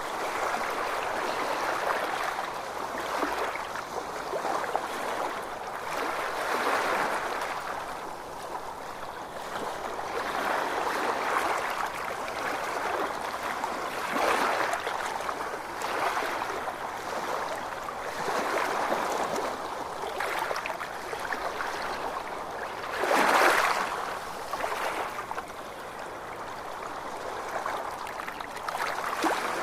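Ocean waves washing in: a steady rush of water that swells and eases every couple of seconds, with one louder surge about three quarters of the way through.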